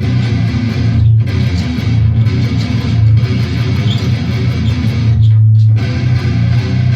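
Electric guitar tuned to drop A playing a low, choppy riff. It stops briefly about a second in, and again just after a held note near the end.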